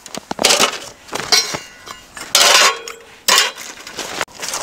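Titanium wood stove plates and nested chimney pipe clinking as they are handled in the canvas carry bag, with rustling of the bag and a louder scrape about two and a half seconds in.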